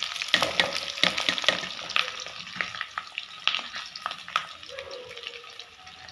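Sliced onions and green chillies dropped into hot mustard oil in an iron kadai, sizzling loudly and crackling with many sharp pops for the first couple of seconds, then settling into a quieter steady sizzle with the odd pop.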